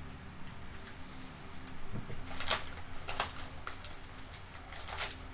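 Gift wrapping paper being torn and pulled open by hand, with a few sharp rips about two and a half, three and five seconds in.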